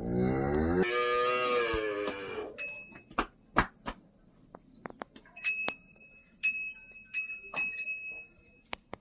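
A cow moos once, one long call of about two and a half seconds. It is followed by scattered knocks and clicks and a few spells of high metallic ringing.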